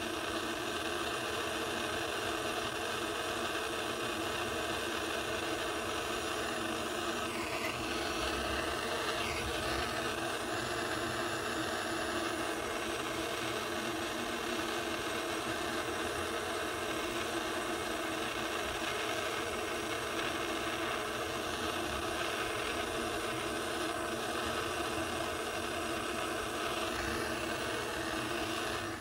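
Jeweler's gas torch flame burning with a steady hiss, held on the piece to keep it at soldering temperature while medium solder flows into the joint.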